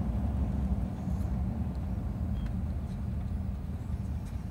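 A vehicle's engine idling, a steady low rumble.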